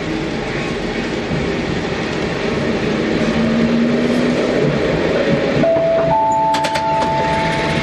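Fukui Railway 200-series tram running along street track, heard from inside the cab: a steady rumble of wheels on rail. About five and a half seconds in, a steady high whine starts and a second, higher one joins it half a second later, with a few clicks.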